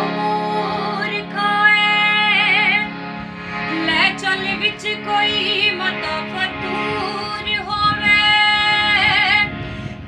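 Harmonium playing a folk melody, its reeds sounding steady held notes with a low note held under the first few seconds, and a woman's voice singing along with a wavering, ornamented line.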